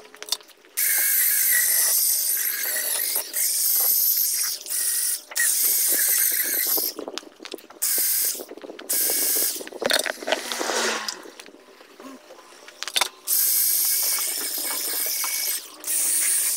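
Handheld corded electric polisher with a foam buffing pad, its motor whining in repeated bursts that start and cut off every second or few, as it buffs a clouded plastic headlight lens with liquid compound. It goes quieter for a few seconds past the middle.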